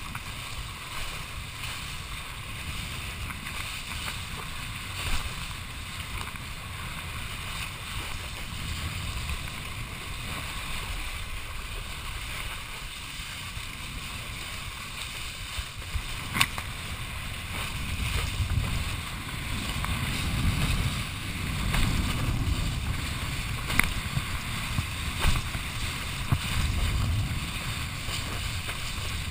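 Wind rushing over the camera as a kiteboard skims across choppy water, with hiss from the spray. The low buffeting rumble grows louder past the middle, with a couple of sharp taps.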